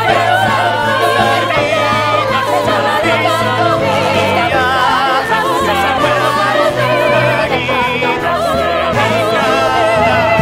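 Ensemble of voices singing together in a musical-theatre chorus, with wavering vibrato on the held notes over steady low accompanying notes.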